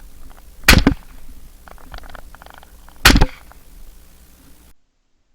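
Two shotgun shots about two and a half seconds apart, each a sharp, very loud report with a short ringing tail, with fainter clicks between them; the sound cuts out abruptly near the end.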